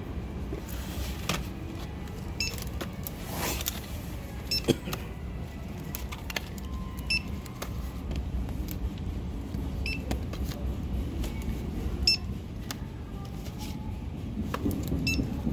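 Checkout barcode scanner giving about five short, high beeps, two to three seconds apart, as boxes are scanned one by one, with light knocks of the boxes being handled over a low steady store hum.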